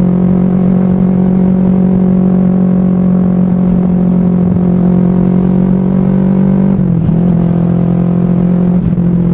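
Kawasaki Ninja 250 carburetted parallel-twin engine running steadily at cruise. Its pitch briefly dips and wobbles about seven seconds in and again near the end.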